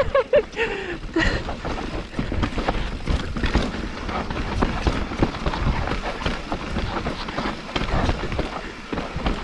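Mountain bike riding down a dirt singletrack: wind rumbling on the camera microphone, tyres on loose dirt, and constant clicks and rattles from the bike over bumps. A short falling tone in the first second.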